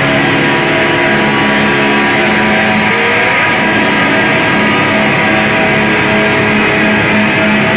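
Noise-drone music: a dense, loud wall of distorted hiss over several held droning tones, unchanging in level. A short sliding tone rises out of it about three seconds in.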